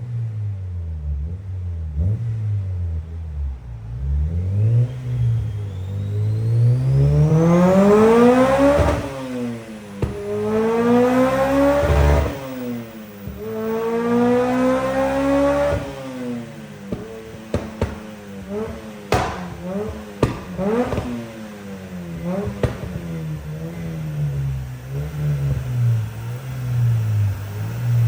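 Honda Civic Type R EP3's K20 four-cylinder engine revving repeatedly: three long climbs in pitch, each falling away sharply, then a run of short rev blips.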